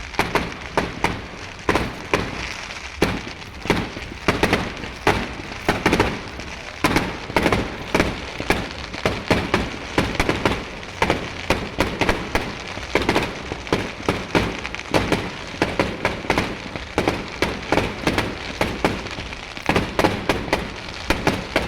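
Fireworks going off in a rapid, unbroken string of loud bangs and crackles, several a second.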